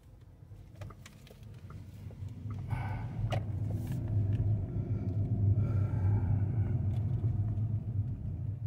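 Road and tyre noise of a moving VW ID.3 battery-electric car. It grows louder over the first few seconds and then holds steady.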